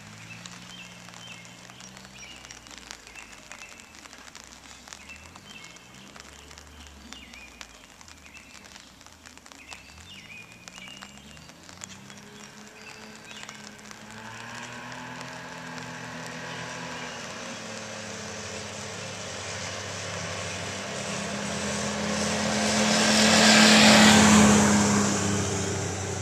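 A car passing close by: its tyre noise and engine hum swell to a peak near the end and then fade. Before it, a low engine hum from slow-moving vehicles rises and falls in pitch.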